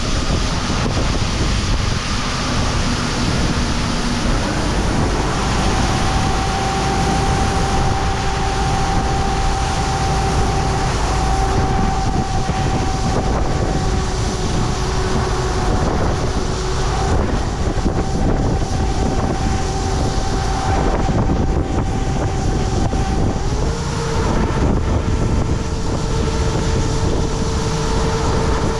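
Farm tractor engine running steadily under heavy wind buffeting on the microphone. A faint steady whine sits over it and shifts to a different pitch about 24 seconds in.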